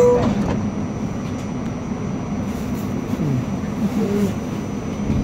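Steady rumble and hiss inside an R68 subway car standing at a station platform just after its door chime, with a few faint low gliding tones after about three seconds as the train readies to pull out.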